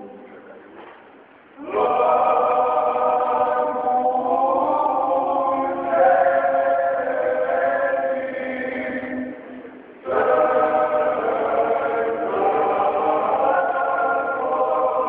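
Male a cappella klapa ensemble singing a traditional Dalmatian Lenten folk hymn in several-part harmony, with the church's echo. A chord dies away at the start, a new phrase enters about two seconds in, and after a short breath near ten seconds another phrase begins.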